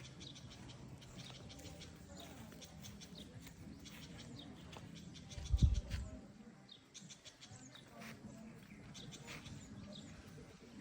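Birds chirping in short, repeated calls over a low steady hum, with a single low thump a little past halfway.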